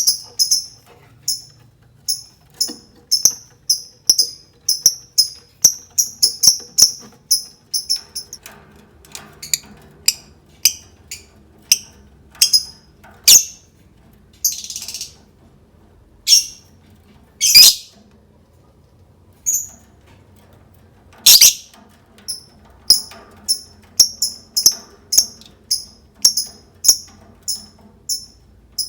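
Lovebird chirping in a quick series of short, high chirps, about two a second, with a sparser stretch in the middle that holds a few louder, shriller calls.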